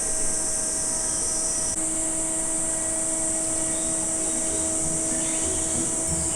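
Summer cicada chorus: a steady, high-pitched buzzing drone, one part of which drops out about two seconds in.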